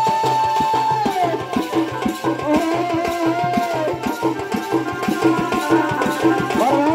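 Chhau dance accompaniment: drums (dhol and dhamsa) beaten in a fast, driving rhythm under a shehnai reed pipe. The pipe holds a long high note that drops off about a second in, plays a wavering phrase in the middle, and slides upward near the end.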